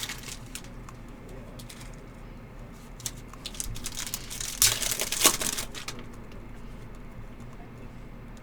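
Plastic wrapper of a trading-card pack crinkling and rustling as it is handled and opened, with a few light clicks, and a louder burst of crinkling and tearing about four to six seconds in.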